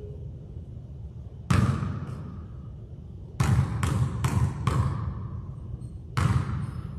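A basketball bouncing on a hard gym floor, each bounce echoing in the hall. There is one bounce about a second and a half in, then four quick bounces around the middle, then one more near the end. These are a free-throw shooter's dribbles before the shot.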